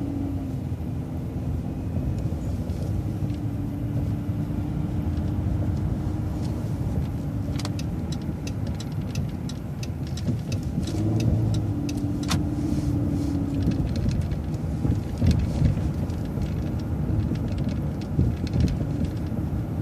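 City transit bus driving along a street, heard on board: steady engine and road rumble with a hum that fades in and out twice, and scattered clicks and rattles from the cabin.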